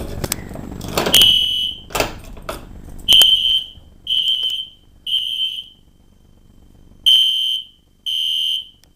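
A few sharp clicks, then a System Sensor SpectrAlert P1224MC fire alarm horn sounding harsh, high half-second blasts in the code-3 temporal pattern: three blasts a second apart, a pause of about a second and a half, then three more, the sign of the fire alarm system in alarm.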